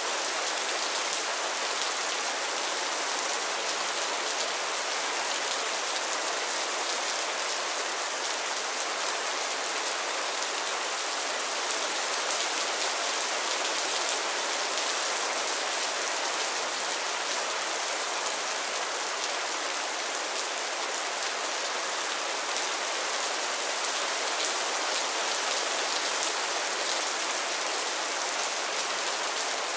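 Mild rain falling steadily on a roof and the ground, an even, unbroken hiss of drops with no let-up.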